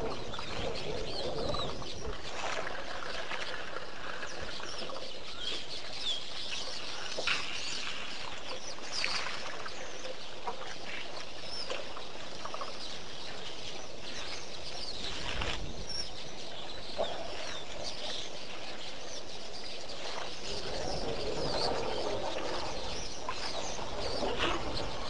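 Wild birds calling and chirping, many short calls scattered through a steady outdoor background.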